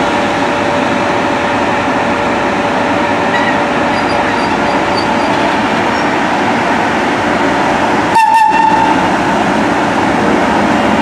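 Steam train of Gr 740 locomotives running steadily with a continuous rumbling rattle. About eight seconds in comes one short whistle blast.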